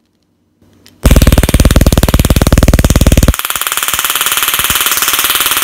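Taser X26 stun gun firing with its electrodes against a raw egg: a loud, rapid, even electric crackle that starts about a second in. About two seconds later the crackle turns thinner, with less low end, and keeps going.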